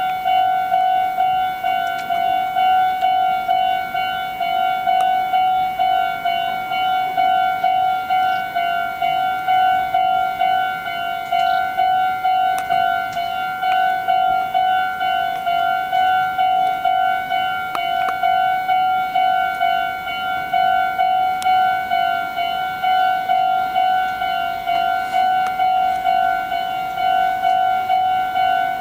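Japanese railway level crossing warning bell ringing over and over at an even, rapid pace, signalling that a train is approaching and the crossing is closed.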